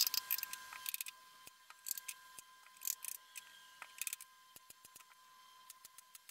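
Short, sharp clicks and light taps in quick clusters, about one cluster a second, then single clicks near the end: hand-tool handling of a plywood drawer box during assembly, with a small hammer and bar clamps at hand.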